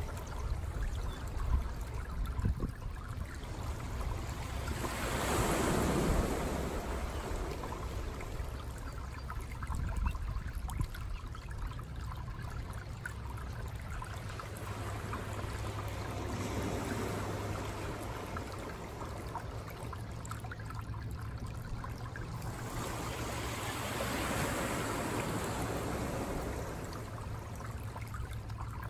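Ocean surf washing in, swelling three times and falling back, over a steady low rumble of wind on the microphone.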